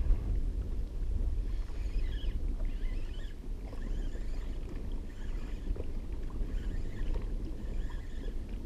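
Water lapping against a kayak's hull, with a steady low rumble of wind on the microphone.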